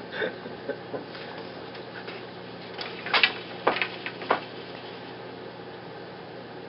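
Wooden floor loom knocking sharply three times in quick succession about three to four seconds in, as the beater is swung against the cloth to pack in the weft. Under it runs a faint steady hum.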